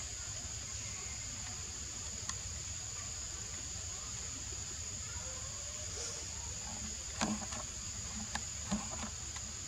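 Steady high-pitched drone of insects in the forest. A few short clicks and rustles come near the end.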